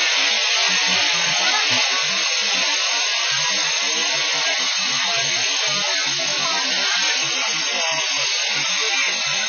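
Loud, steady hiss of fire hoses spraying water onto a smoking building, with irregular low rumbles underneath.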